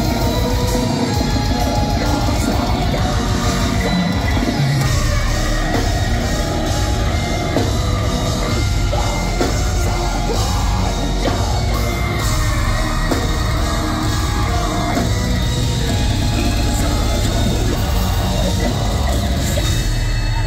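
Live deathcore band playing at full volume: distorted electric guitars and drums under harsh screamed vocals, loud and dense.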